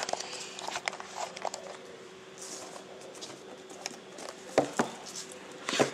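Hands handling and opening a new iPad's packaging: scattered light taps and clicks, a brief swish about two and a half seconds in, and sharper knocks near the end.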